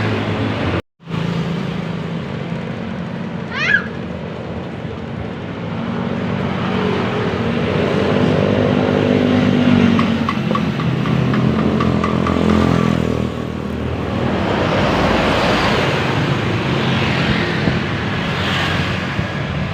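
Roadside traffic with buses going by: a heavy engine running with its pitch rising and falling, then the rushing noise of vehicles passing close. The sound drops out completely for a moment about a second in.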